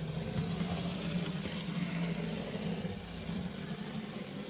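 Lima 0-4-0 model locomotive's small electric motor running as the loco travels along the track, a steady low hum; it runs smoothly on its newly fitted brushes.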